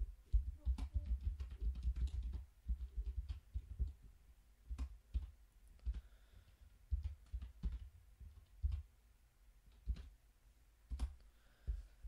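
Typing on a computer keyboard, each keystroke a soft click with a dull thump: a quick run of keystrokes for about the first two and a half seconds, then single clicks spaced a second or so apart.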